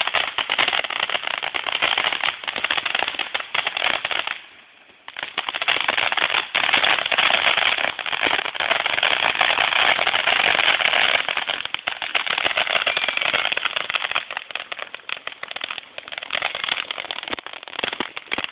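Fireworks going off in rapid, dense crackling and popping, like firecracker strings. There is a brief lull about four and a half seconds in before the crackling picks up again.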